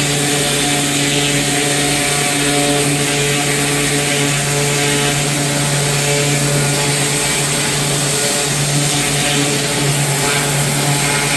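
A small engine running steadily at constant speed, with a steady hiss over it.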